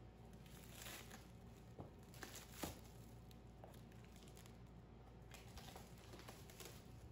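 Faint crinkling and rustling of clear plastic wrap being pulled off a cardboard box, with a few sharp clicks about two to three seconds in.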